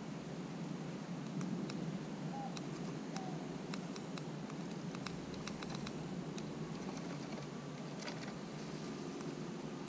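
Eastern gray squirrel chewing and gnawing on avocado, a scatter of small sharp clicks several times a second over steady background hiss.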